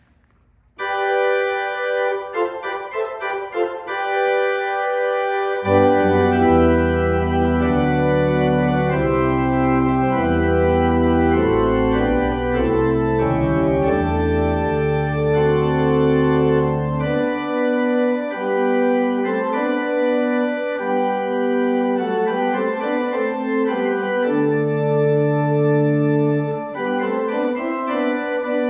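Organ playing sustained chords with a moving melody above. It starts about a second in, and deep pedal bass notes come in near six seconds and drop out around seventeen seconds.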